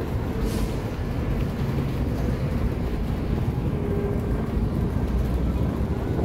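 Steady low rumble of a moving city bus heard from inside the passenger cabin: engine and road noise with no sudden changes.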